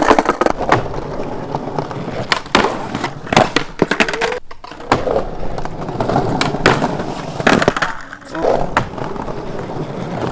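Skateboard wheels rolling on concrete, with repeated sharp clacks and slaps of the board hitting the ground and obstacles through the run. There is a brief break about four and a half seconds in.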